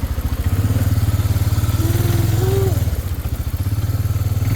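ATV (four-wheeler) engine running as it is ridden, picking up about half a second in, easing off briefly near three seconds, then picking up again.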